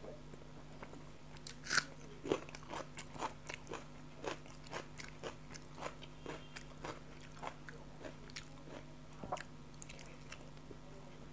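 Close-miked chewing of a mouthful of rice and egg curry: wet mouth clicks and smacks, about two a second, with one louder smack about two seconds in.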